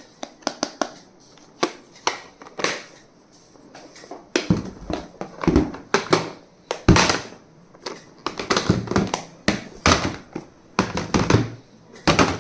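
Stationery items being handled and set down: a quick, irregular run of clicks and taps, with longer rustling or crinkling scrapes from about four seconds in.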